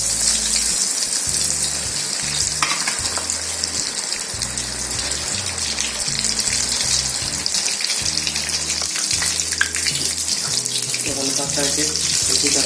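Breaded potato cheese balls deep-frying in medium-hot oil in a kadai: a steady, dense crackling sizzle of oil bubbling around the balls.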